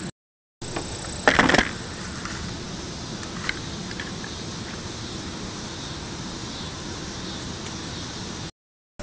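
Camera handling: a short, loud knock about a second and a half in, as the camera is set down in the grass, over a steady hiss. The sound drops out completely for a moment just after the start and again just before the end.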